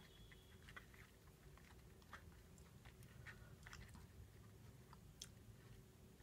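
Near silence, with faint scattered clicks and rustles from fingers twisting a thin connecting wire onto a small electrical part.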